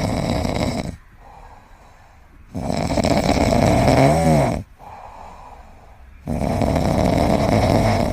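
A pet snoring loudly: three long, rasping snores about three seconds apart, with quieter breaths between them. The middle snore carries a wavering, buzzing rattle.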